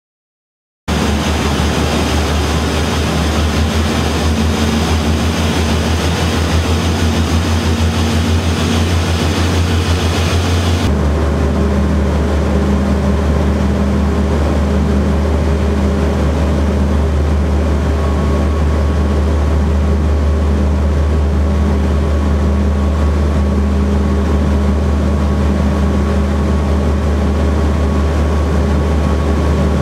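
Steady engine drone of an aircraft in flight, heard from inside the cabin, starting abruptly about a second in. A third of the way through the sound changes at once and becomes duller, then runs on steadily.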